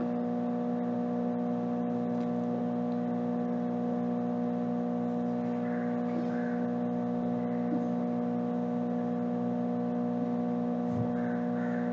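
A steady electrical hum made of several even tones that hold level throughout.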